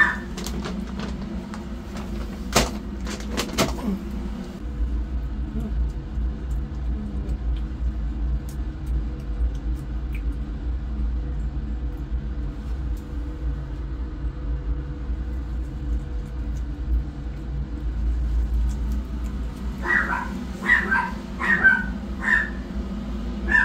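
A cat eating wet food from a steel bowl, with sharp clicks against the bowl in the first few seconds, then a steady low rumble. Near the end, newborn kittens mew in a run of short, high cries.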